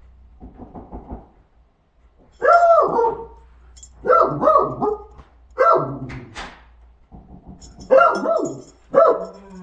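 A dog barking from under a blanket: about six short barks, some in quick pairs, starting about two seconds in.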